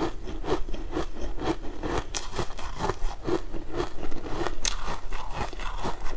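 Close-miked chewing of a crunchy food, with a crunch about twice a second and a few sharper clicks.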